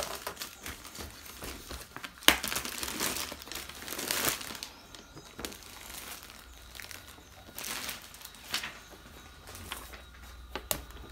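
Clear plastic wrap crinkling as it is pulled off a wooden bed tray, broken by several sharp knocks as the tray's wooden frame is handled; the loudest knock comes about two seconds in.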